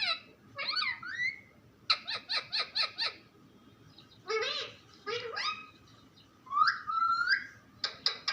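Pet parrot calling and chattering in short bursts. The calls glide up and down in pitch, and about two seconds in there is a quick run of about six clipped notes. A longer gliding call comes near the end.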